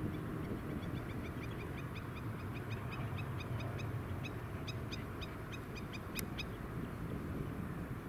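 A bird calling a rapid series of short, high notes, a few a second, for about five seconds over a steady low rumble. A sharp click comes near the end of the series.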